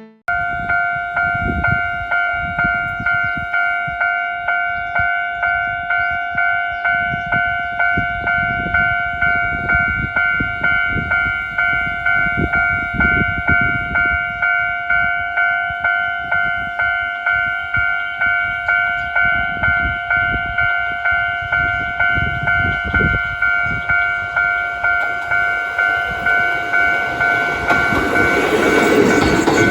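Japanese level crossing warning bell ringing in an even ding-ding beat, about two strikes a second, as the crossing is closed for a train. Over the last few seconds the rumble of an approaching Kotoden Nagao Line train builds under the bell.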